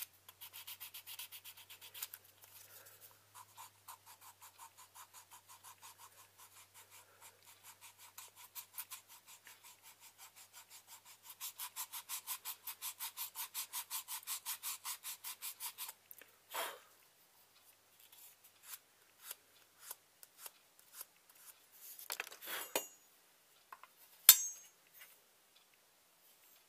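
Quick back-and-forth hand strokes abrading the edge of a knife handle scale and its blue liner, about four strokes a second, getting louder shortly before they stop about two-thirds of the way in. A few light clicks and taps follow, with one sharper click near the end.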